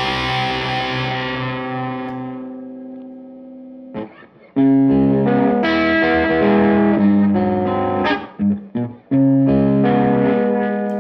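Electric guitar played through a Tone King Gremlin tube amp on its lead channel at maximum gain, with the guitar's pot rolled down, giving a distorted tone. A held chord rings and fades, then after a short break comes a run of sustained chords and notes, broken by a few short muted stabs.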